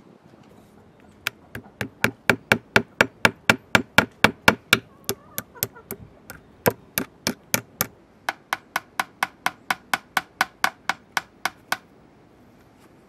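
Hammer driving nails through a whole trout into a wooden board, a long run of sharp taps about four a second with a short pause partway through.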